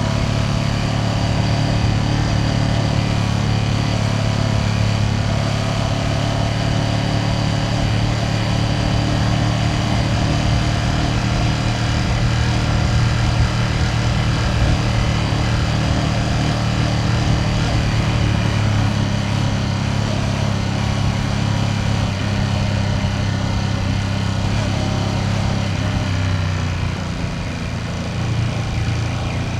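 Ducati Panigale V2S twin-cylinder engine running steadily under way at a constant speed, easing off near the end.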